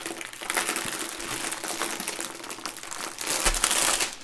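Clear plastic wrapping crinkling as it is pulled and handled off a rolled-up diamond painting canvas, louder for about a second near the end.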